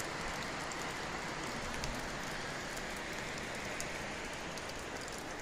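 Creek water rushing steadily, with a few faint clicks on top.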